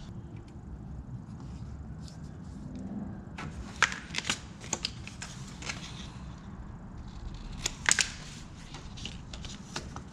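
A repair template being made by hand: light crinkling and handling noise, with a few sharp snipping clicks in two clusters, about four and about eight seconds in, over a low steady hum.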